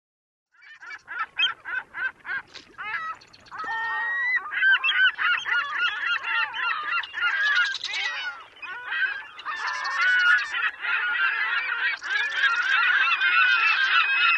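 A flock of birds calling, many calls overlapping. It opens with a quick run of short repeated calls and builds to a dense chorus.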